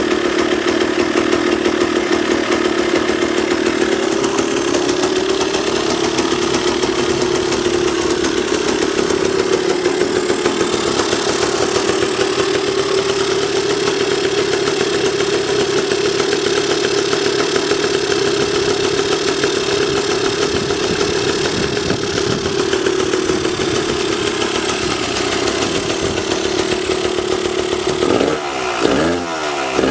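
Yamaha DT200WR's two-stroke single-cylinder engine running steadily at a raised idle, with a few quick throttle blips near the end. By the seller's account it has no abnormal noise.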